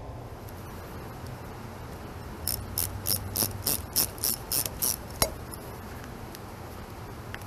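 Hand socket ratchet clicking in a quick run of about nine strokes, roughly four a second, then one sharp click, as a bolt on the excavator's hydraulic filter cover is worked.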